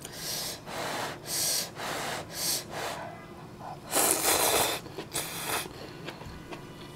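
A woman blowing on a chopstick-full of hot ramen noodles in several short breaths, then slurping them in loudly about four seconds in, followed by a shorter second slurp.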